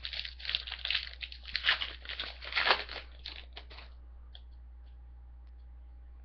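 Trading-card pack wrapper being torn open and crinkled, a dense crackling for about four seconds that then stops, leaving a faint hum.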